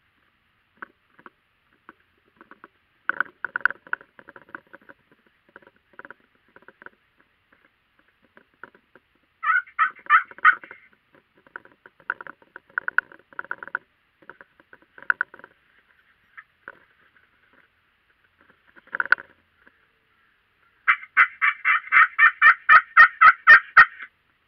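Wild turkey calls: scattered soft clucks and purrs, a louder rattling burst about ten seconds in, and near the end a run of about a dozen loud yelps, roughly four a second.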